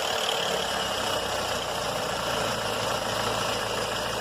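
Ford EcoSport's Zetec Rocam engine running just after starting, with timing-chain noise over the idle. The chain tensioner has been drained of oil and has no oil pressure, which reproduces the noise the engine makes only on the first cold start of the day.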